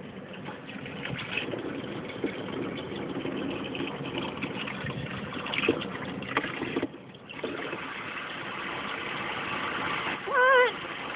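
Water gushing and splashing, as from a small toy water pump, with a short break about seven seconds in. Just before the end comes a brief high, wavering voice.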